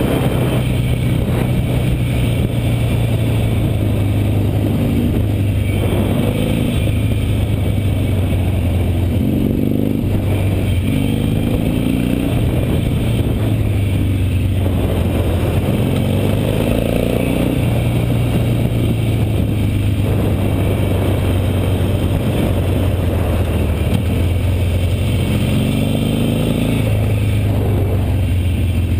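Harley-Davidson Nightster's V-twin engine running under way, its pitch rising and falling again and again as the bike accelerates out of corners and backs off into them.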